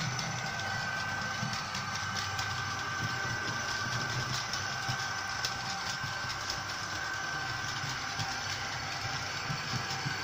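Model electric locomotive running along layout track with coaches in tow: a steady motor whine and hum, with light clicking of the wheels over the rail joints.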